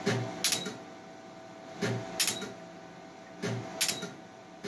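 Laser hair removal handpiece firing pulses on the chin: three shots, each a brief double click, about every second and a half to two seconds.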